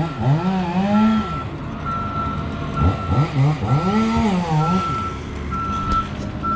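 Reversing alarm on a heavy vehicle beeping a single high tone about once a second, over a diesel engine revving up and down twice.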